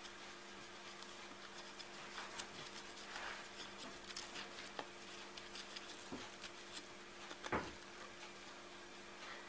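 Hamster scrabbling its way into a tube on a hard floor: faint scratching and light taps, with one louder knock about seven and a half seconds in. A faint steady hum runs underneath.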